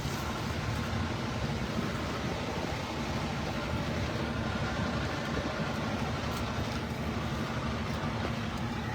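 Steady street noise of traffic in the rain, with a low, constant hum under it.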